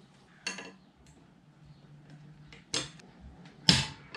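Three sharp metallic clicks and clinks, the loudest near the end, from small metal hardware such as a carabiner knocking against a steel bracket frame as it is handled.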